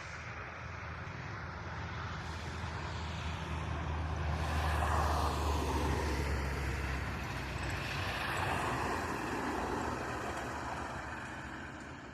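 A vehicle passing by: a steady engine hum and noise swell to their loudest about five seconds in, then fade away.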